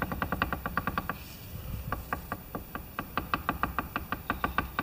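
Exposed gears of an MTD lawn tractor differential turned by hand, giving a rapid chatter of clicks, about ten a second, with a short lull about a second in. This is the growling, grinding chatter in the gear mesh being traced, with no obvious cause in sight.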